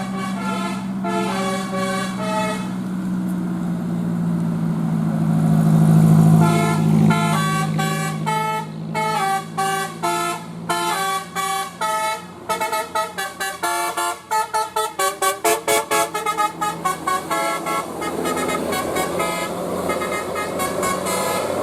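Tour bus's Basuri multi-tone 'telolet' horn playing a melody in quick stepping notes, speeding up into a rapid staccato run before stopping near the end. The bus's engine hums underneath and swells briefly during a pause in the tune.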